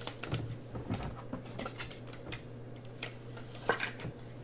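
Faint, irregular light clicks and taps, a slightly stronger pair near the end, over a low steady hum.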